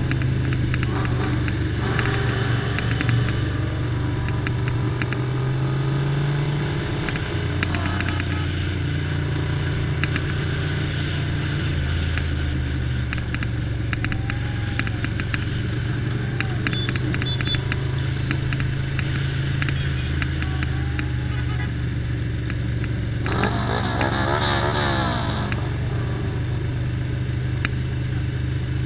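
Ducati Paso 750's air-cooled V-twin running at low speed, heard from a helmet camera on the bike. Its low steady note changes pitch a couple of times early on, and about two-thirds through there is a short, rough burst of louder sound with a fast wavering pitch.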